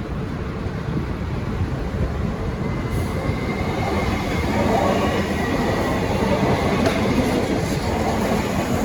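V/Line N-class diesel locomotive and its carriages rolling through the station, a steady rumble of engine and wheels that grows louder about three seconds in. From then on a faint, thin, high-pitched wheel squeal runs over it.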